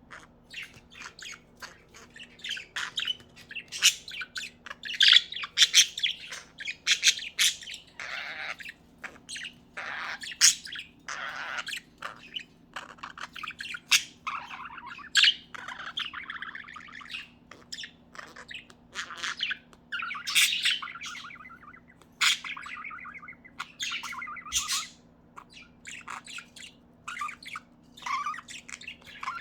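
Several pet budgerigars chirping, chattering and squawking, many short sharp calls in quick succession.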